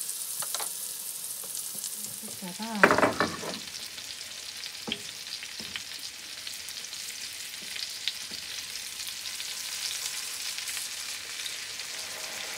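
Hamburger patties sizzling steadily in oil in a metal frying pan as they are browned, with a wooden spatula scraping and tapping against the pan; one louder, squeaky scrape comes about three seconds in.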